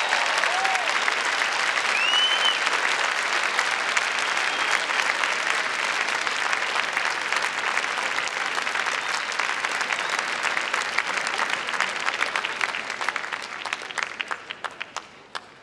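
Large crowd applauding steadily, the clapping thinning to scattered separate claps near the end.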